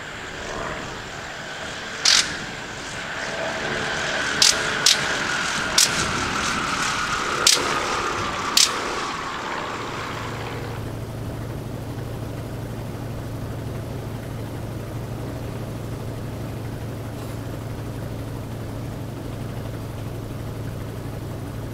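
Vintage biplane's aero engine running as it flies past, its pitch falling as it goes by, with several sharp pops. About ten seconds in this gives way to a steady, even low engine drone in flight.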